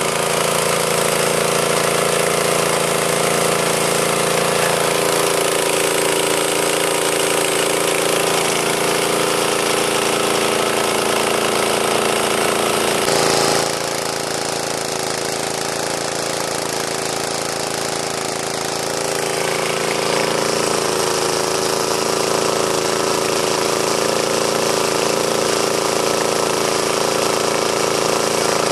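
H5.5AK150 high-pressure breathing-air compressor, driven by its small petrol engine, running steadily as it fills a scuba cylinder. About halfway through there is a brief jolt, and it runs a little quieter for several seconds.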